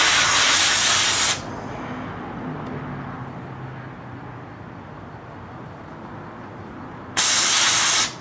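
Inexpensive Harbor Freight hand-held sandblaster gun blasting grit with compressed air at a steel motorcycle frame to strip rust: a loud, even hiss that cuts off about a second and a half in, then a second blast near the end. A quieter low hum runs between the two blasts.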